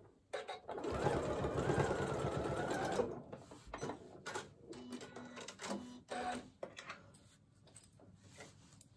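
Janome Skyline computerized sewing machine stitching fast for about three seconds across the end of a zipper in a folded fabric tab, then stopping. After it stops there are a few clicks and short low whirs of the machine.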